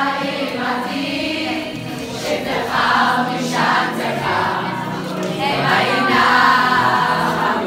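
A crowd of girls singing a song together, like a choir.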